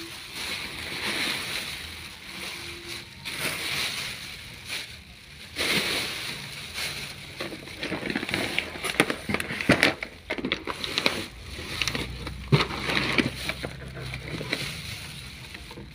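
Inflated plastic air-pillow packing crinkling and rustling as it is handled and pulled out of a cardboard box, with sharp crackles and knocks that come thick and fast in the second half.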